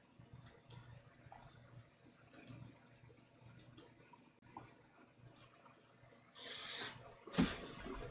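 Faint scattered clicks over quiet room tone, then a brief rustle and a thump near the end.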